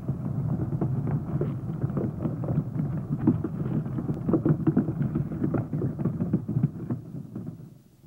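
Cartoon rolling sound effect for a ball: a low, bumpy rumble with many small clicks and knocks, fading out near the end.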